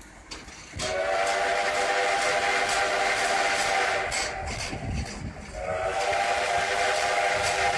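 Steam locomotive's chime whistle on the 1880 Train, several notes sounding together. One long blast of about three and a half seconds starts about a second in, and a second long blast begins about a second and a half after the first ends.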